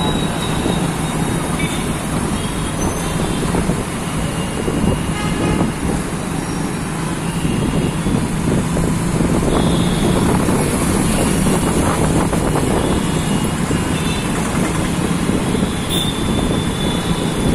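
Auto-rickshaw engine running, heard from inside the moving rickshaw, over steady city traffic noise, with short vehicle horn toots now and then.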